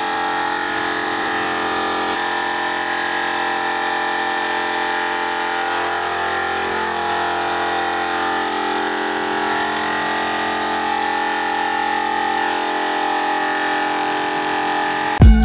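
Compressed-air spray-finishing rig running steadily: an air compressor humming with the hiss of a gravity-feed spray gun spraying dark wood finish. Loud music cuts in abruptly at the very end.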